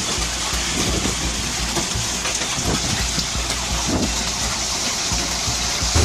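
Heavy rain mixed with hail coming down in a storm: a steady, dense hiss with no let-up.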